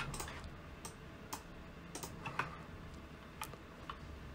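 Computer keyboard and mouse clicks: a sparse, irregular run of single sharp clicks, the loudest right at the start.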